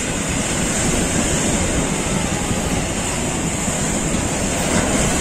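Ocean surf breaking and washing up a sandy beach, a steady rush of water, with wind buffeting the microphone.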